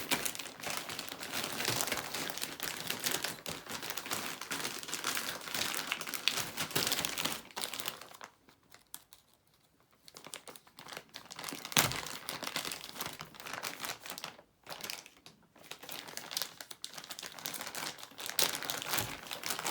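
Plastic packaging crinkling and rustling as it is handled, with a pause of about two seconds near the middle.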